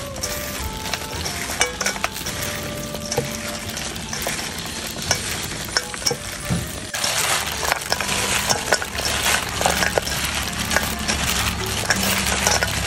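Gloved hands tossing crispy fried pork belly with sliced lemongrass, chilies and kumquats in a stainless steel bowl: a steady crackling, rustling mix with many small clicks, growing louder and denser about seven seconds in.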